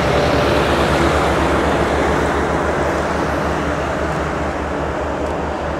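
Steady rushing noise, like wind on the microphone during an outdoor bike ride, easing slightly toward the end.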